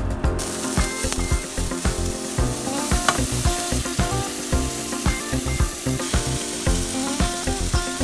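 Food sizzling in hot oil in a nonstick frying pan, starting about half a second in, over background music with a regular beat.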